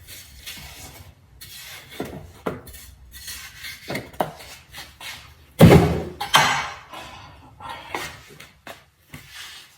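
Kitchen dishes and utensils being handled: scattered knocks and clatter, the loudest two sharp knocks about six seconds in.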